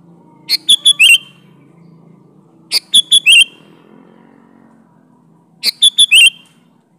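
Sooty-headed bulbul (kutilang) singing: three identical short phrases of four quick whistled notes, about two and a half seconds apart.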